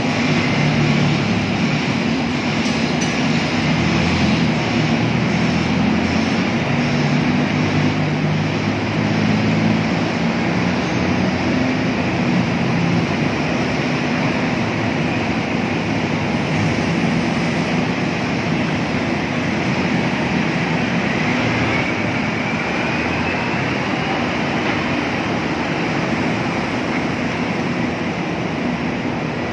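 Diesel engines of terminal tractors running steadily, with a low engine hum that is strongest in the first dozen seconds over a continuous machinery noise. A faint rising whine comes in about two-thirds of the way through.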